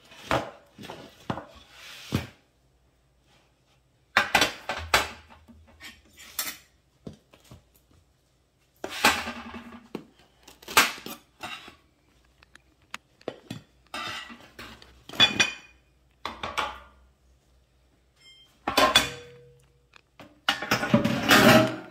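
Metal baking sheet and kitchen utensils clanking, knocking and scraping in a series of separate handling sounds as baked loaves are moved onto a wooden cutting board and a knife is set down. The loudest clatter comes near the end.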